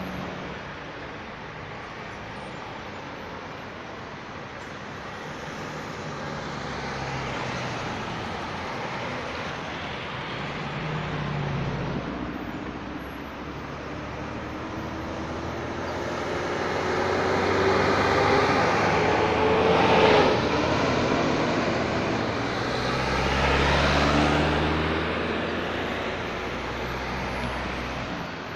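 Road traffic of cars and a bus driving past, a steady hum of engines and tyres that swells as each vehicle passes. One engine note rises slowly as a vehicle speeds up and is loudest about two-thirds of the way through, and another vehicle passes a few seconds later.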